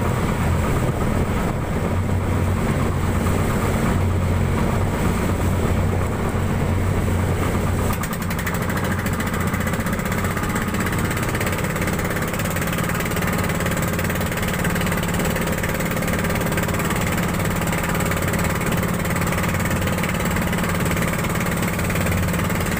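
Outrigger fishing boat's engine running steadily while under way, with water and wind noise around it; the engine note shifts slightly about eight seconds in.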